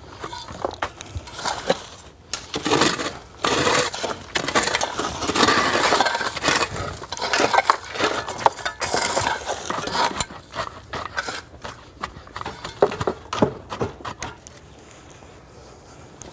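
Shovels scooping rocky soil and tossing it into a trench: an irregular run of scrapes and sharp knocks, dying down near the end.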